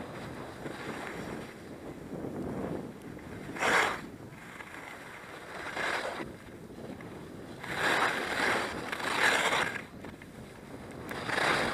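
Skis sliding over groomed snow, with several hissing scrapes as the edges bite in the turns, loudest about four seconds in, twice between eight and ten seconds, and near the end. Wind noise on the microphone underneath.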